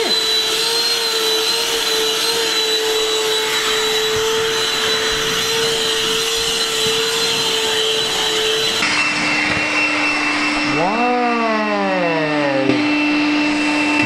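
Black & Decker lithium-ion cordless handheld vacuum (Dustbuster) running steadily with a high whine. About nine seconds in, its hum drops to a lower pitch.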